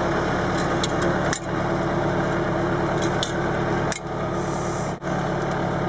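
Tractor engine running steadily while pulling a 14-gripper vegetable transplanter, with a few sharp metallic clicks from the planter's gripper mechanism.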